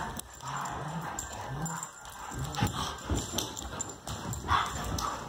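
Two dogs, an adult and a puppy, play-fighting: several short low growls, with huffs and the scuffle and knock of paws and bodies.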